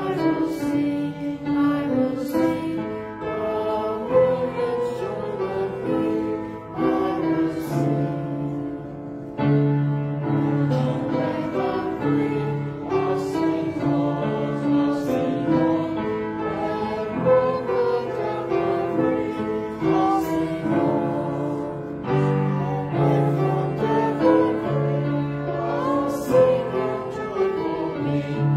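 Small congregation singing a hymn, with a keyboard accompaniment holding steady low notes beneath the voices.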